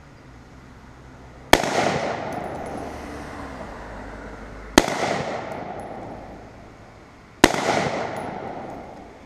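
Three single shots from a Palmetto AR-15 rifle, about three seconds apart, each a sharp crack followed by an echo that fades away over about two seconds.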